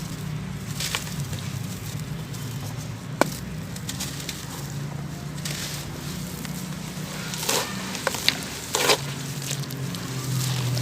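Dry sand-cement chunks being crumbled and crushed, giving irregular crisp crackles and crunches, with a sharp snap about three seconds in and a run of louder crunches in the last few seconds. A low steady hum sits underneath.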